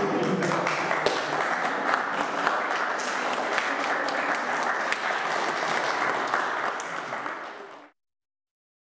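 A small group of people clapping their hands, a dense patter of claps that trails off and cuts out suddenly about eight seconds in.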